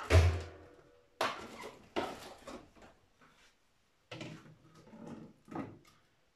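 Plastic PET bottles being handled and rinsed over a tub of water: a loud thump at the very start, then several short bursts of knocking, rustling and splashing.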